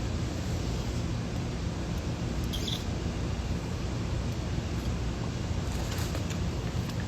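A steady low rumbling background noise with no speech, with a faint short high chirp about two and a half seconds in.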